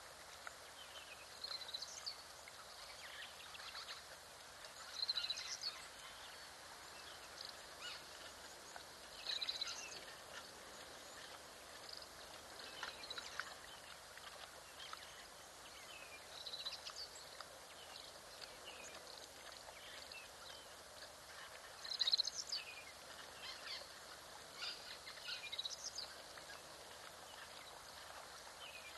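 Birds calling in short high-pitched bursts every few seconds, the loudest about two-thirds of the way through, over a steady hiss of outdoor background.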